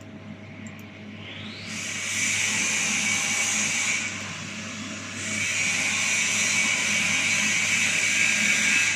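Machinery on a CNC router: a hissing motor or air noise that rises in pitch and builds up about a second in, runs steadily, drops back for about a second, then comes back loud over a steady low hum.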